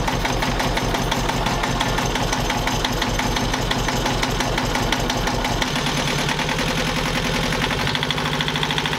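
Sailboat's inboard engine running with a fast, even pulse, its note changing about six seconds in. The engine sits on broken mounts, held up only by rope lashings and an old winch motor jammed in beneath it.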